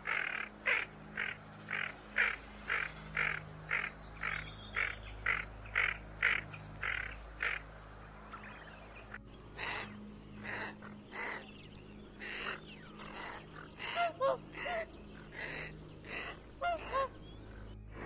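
Tufted duck calls: a regular series of short calls, about two a second. From about nine seconds in, greater scaup calls follow, irregular and mixed with a few short curving whistled notes.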